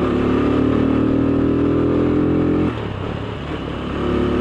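Motorcycle engine running at a steady speed while riding. It eases off about two and a half seconds in and picks up again near the end.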